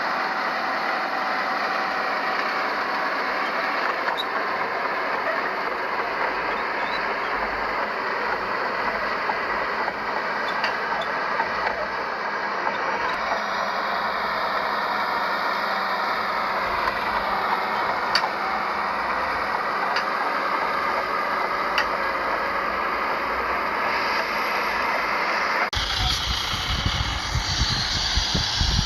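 Heavy earthmoving machinery working, a bulldozer and dump trucks: a steady mechanical engine noise with a few sharp clanks. About 26 s in, the sound shifts abruptly to a deeper engine rumble.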